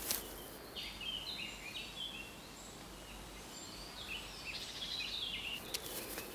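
Short high-pitched chirping calls in quick stepped phrases, in two bursts, over faint background hiss.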